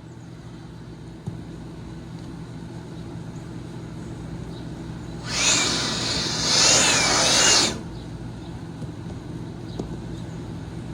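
A power tool, likely a drill, runs in two pulses for about two and a half seconds, starting some five seconds in, its whine rising and falling, over a steady low hum.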